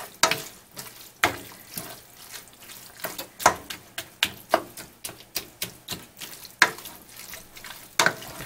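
A plastic spoon stirring rotini in a thick cream sauce in a stainless steel pan: wet squelching, with irregular clicks and knocks of the spoon against the pan.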